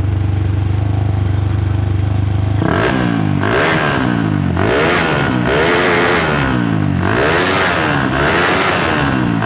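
Modified TVS motorcycle engine with a Suzuki Satria FU DOHC cylinder block and head, bored and stroked to 65 by 66 mm, idling steadily and then revved in quick blips about once a second from roughly two and a half seconds in, its pitch rising and falling with each blip.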